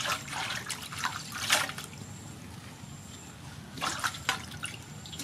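Water splashing and trickling in a few short, irregular bursts as leafy greens are washed by hand.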